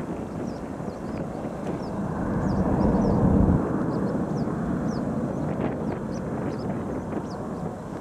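Boeing 737 jet engines at take-off thrust as the airliner climbs away, a heavy rumble that swells to its loudest about three seconds in and then slowly fades as the plane recedes.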